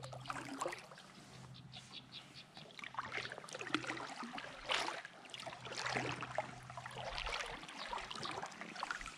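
River water splashing and trickling around a kayak in small, irregular splashes.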